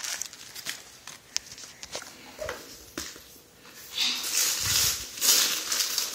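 Gift wrapping paper being torn and crinkled as a present is unwrapped: scattered light crinkles at first, then loud, continuous tearing and rustling from about four seconds in.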